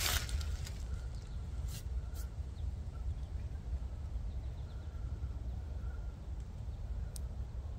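Steady low rumble of an air compressor pumping up a tractor's rear tire, with a few sharp clicks.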